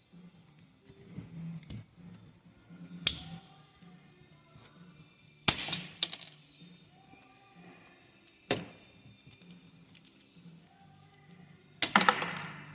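Retaining clips being popped off a coolant valve's electric motor housing: sharp snaps with small parts clattering onto a hard surface, four times.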